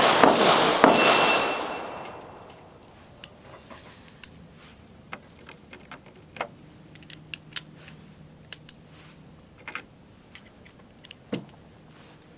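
A run of loud, sharp cracks fades away over the first two seconds. Then come scattered light metallic clicks from an M1898 Rast & Gasser revolver's action as 8mm Gasser cartridges go into the chambers and trigger pulls, with the loading gate open, rotate the cylinder round to the next one.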